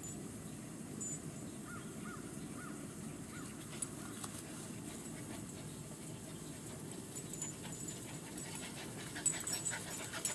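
German Shepherd puppies playing: a few faint high whimpers about two seconds in, then scuffling and rustling with short yips from about seven seconds on, over a steady low background noise.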